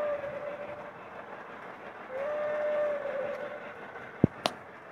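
The electronic steam whistle of a Lionel LionChief 0-8-0 model locomotive sounds twice, each blast held more than a second, over the running noise of the tinplate train on its track. Two sharp clicks come near the end.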